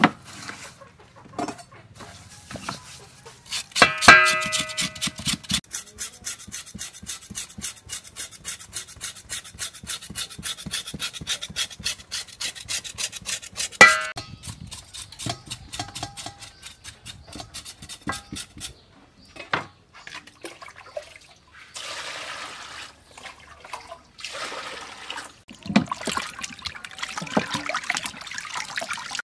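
Cow feet being washed by hand in a stainless-steel bowl of water, splashing and rubbing in the second half. Earlier there is a sharp ringing knock about four seconds in, followed by about ten seconds of rapid, even ticking.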